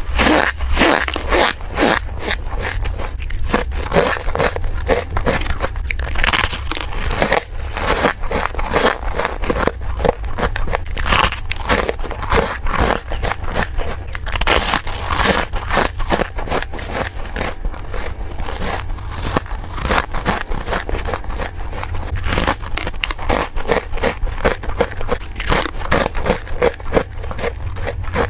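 Fast, continuous biting and chewing of freezer frost: a dense run of squeaky, crispy crunches with no pauses.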